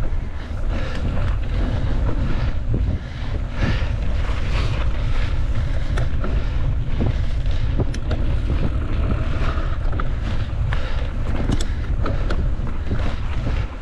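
Wind buffeting a moving mountain bike camera's microphone as a steady low rumble, with irregular clicks and rattles from the bike running over rough trail.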